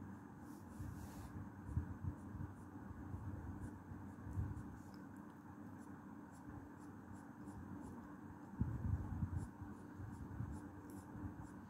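Felt-tip marker scribbling back and forth on paper as it colours in a small area, an irregular scratching that grows louder a little past halfway.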